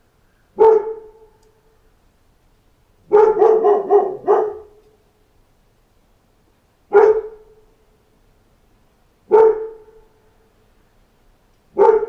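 A dog barking. One bark, then a quick run of about five barks three to four and a half seconds in, then single barks a couple of seconds apart, each with a short echo.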